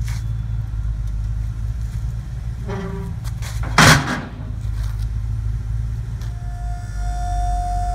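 A steel tuck-away truck liftgate being unfolded: a short metal creak about three seconds in, then a loud clang as the platform flap drops flat onto the pavement just before four seconds. About six seconds in, the liftgate's hydraulic pump motor starts with a steady whine. The idling truck's engine makes a low steady rumble underneath.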